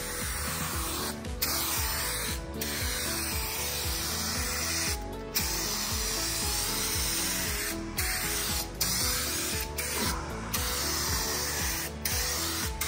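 Aerosol spray can of clear coat hissing steadily in long passes, cut by short breaks each time the nozzle is let go, with background music underneath.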